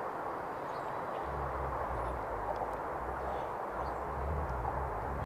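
Outdoor ambience: a steady rushing noise with low wind rumble on the microphone that comes in about a second in and again near the end, and a few faint bird chirps.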